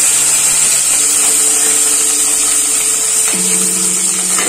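Fresh curry leaves frying in hot coconut oil with mustard seeds and dried red chillies: a loud, steady sizzling hiss.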